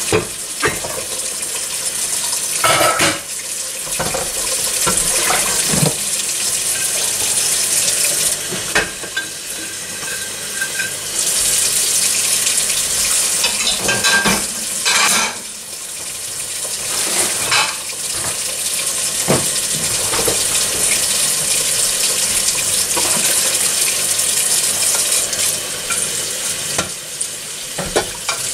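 A steady hissing rush in a kitchen, with scattered clinks and knocks of dishes and utensils being handled.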